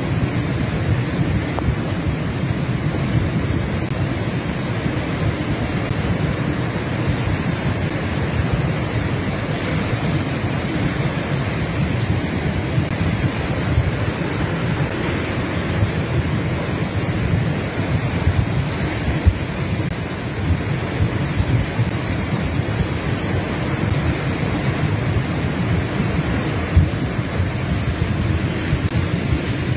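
Steady rush of a flooded, muddy creek in torrent, with heavy rain falling.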